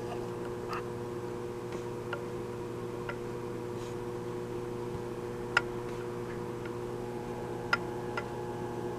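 A steady hum of several held tones, with faint scattered clicks every second or two.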